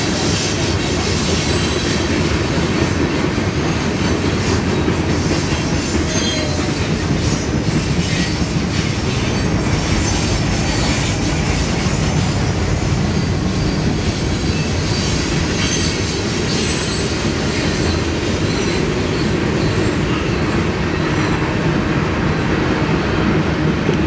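Freight train of tank cars and boxcars rolling past close by: a steady rumble and rattle of steel wheels on the rails, with scattered sharper clicks.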